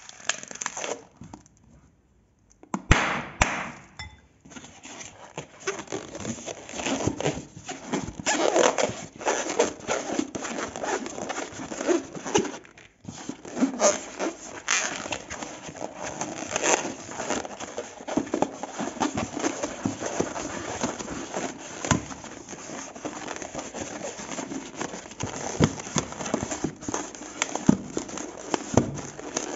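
Glossy slime being mixed and squished by hand, a dense run of sticky clicks and crackling pops, with a short pause about two seconds in.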